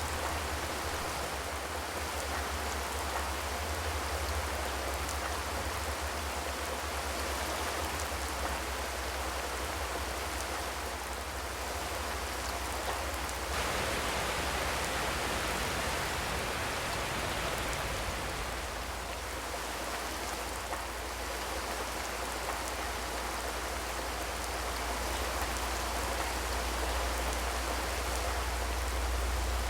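Steady rain falling, a continuous patter with no thunder. It swells briefly heavier about halfway through.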